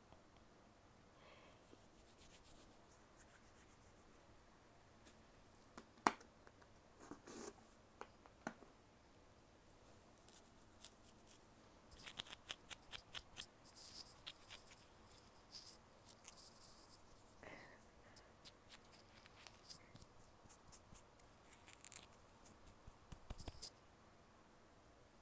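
Faint crinkling and crackling of a thin plastic film being peeled off a round gummy candy: a run of quick crackles for about twelve seconds in the second half, with a single sharp click about six seconds in.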